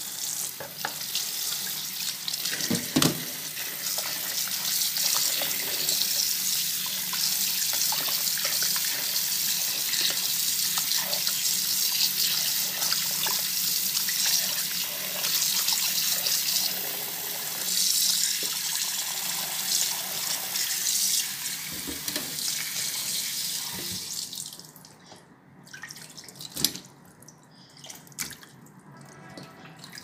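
Kitchen tap running steadily into a plastic basin while raw chicken is rinsed and rubbed by hand, with splashing. The running water stops about six seconds before the end, leaving scattered drips and small splashes.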